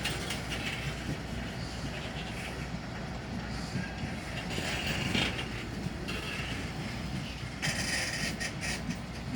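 Container freight train rolling along the rails: a steady low rumble of wagons and wheels, with short stretches of louder, higher-pitched rail noise about halfway through and again near the end.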